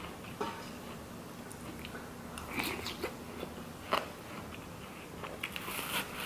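Someone eating watermelon with a metal spoon: soft scoops into the juicy flesh and quiet chewing, with a few short clicks and scrapes, the sharpest about four seconds in.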